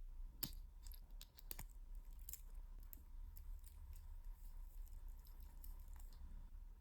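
Faint, scattered light clicks, a few a second at most, over a low steady hum.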